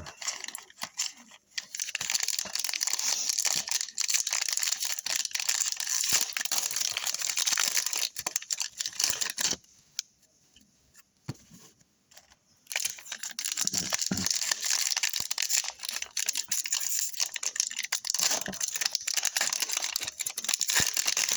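Plastic trading-card pack wrapper being torn open and crinkled, in two long stretches of dense crackling with a short pause between.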